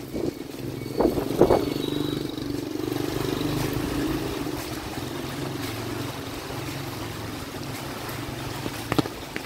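A motor vehicle engine running close by in a flooded street, a steady low hum, with two sharp knocks about a second in and a click near the end.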